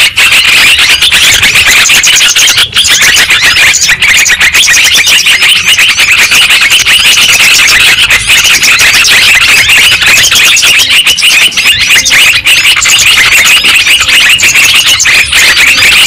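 Dense, loud chorus of many yellow-vented bulbuls chattering and calling at once, a continuous jumble of quick chirps and trills. It is a bird-lure recording meant to draw wild birds down.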